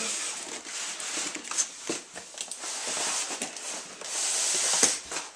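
Cardboard box and its packing rustling, scraping and knocking close to the microphone as the contents are pulled out, with a louder stretch of rubbing about four seconds in.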